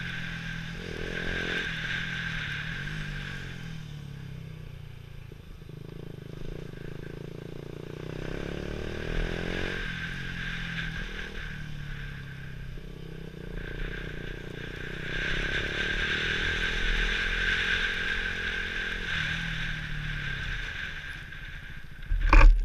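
Sport motorcycle engine running at low speed, its pitch rising and falling with the throttle, with steady wind noise on the microphone. A single loud thump comes near the end.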